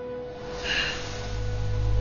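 A short breathy vocal burst about half a second in, over a low rumble that swells from about a second in and a steady hum.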